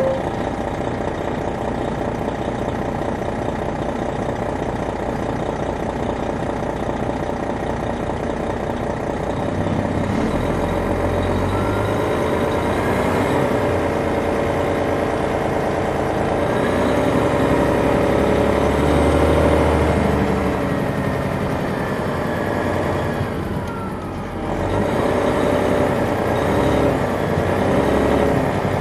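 Detroit Diesel Series 60 diesel engine of a 2001 MCI D4000 coach, heard from on board while the bus is under way. It gets louder about ten seconds in, and its pitch climbs and falls several times, with a brief drop about 24 seconds in.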